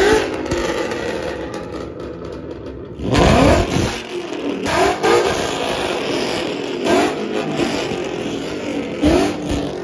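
Muscle car engines idling and being revved, with about five quick rev blips that rise sharply in pitch over a steady engine drone. The loudest rev comes about three seconds in.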